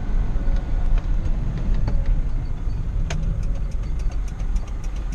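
Mazda T4000 truck's engine and road noise heard from inside the cab while driving, a steady low rumble. A sharp click comes about three seconds in, followed by a regular light ticking.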